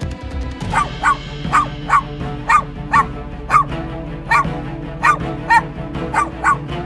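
A dog barking repeatedly in short, sharp barks, about two a second, starting shortly after the opening, over background music.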